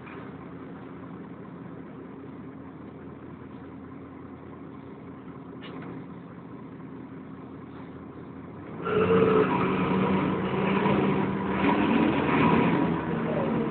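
The diesel engine of a Volvo B10BLE bus, heard from inside the bus, running steadily at a low level. About nine seconds in, a much louder, rougher sound from the engine and cooling-fan area comes in suddenly, carrying several steady tones, and keeps going.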